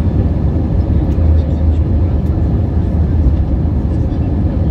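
Steady, deep cabin noise of an Airbus A320-family jet airliner on its landing approach: the turbofan engines and the air rushing past the fuselage, heard from a window seat.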